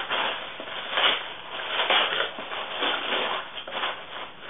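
Gift wrapping paper being torn open and rustled by hand: irregular crinkling and ripping in uneven swells.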